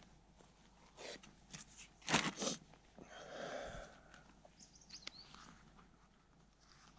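Close handling noises as lunch is made: a few short crunches and crackles, the loudest two together about two seconds in, then about a second of rustling. A brief high bird chirp comes about five seconds in.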